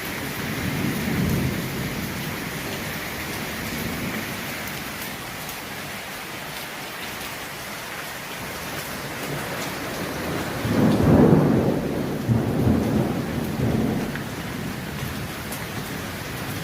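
Steady heavy rain with thunder rumbling: a low roll about a second in, and a louder, longer one from about eleven to fourteen seconds in.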